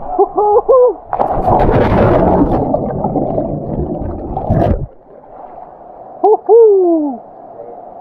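A short whooping shout, then a loud splash and churning water for about four seconds as someone jumps into the waterfall pool, the water noise stopping abruptly. Another whoop, falling in pitch, follows about a second and a half later.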